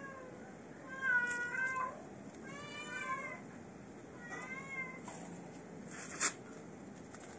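Domestic cat meowing three times, each meow rising then falling in pitch. A short sharp tap about six seconds in.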